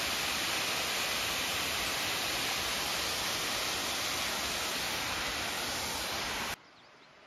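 Waterfall rushing in a steady, loud hiss of falling water. It cuts off abruptly about six and a half seconds in, leaving a much quieter background.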